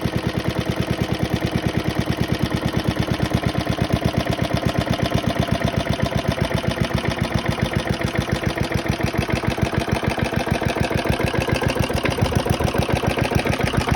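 The petrol engine of a 1972 Hayterette rotary mower running steadily with even firing pulses, getting a little louder near the end. After a hard start it is now going well.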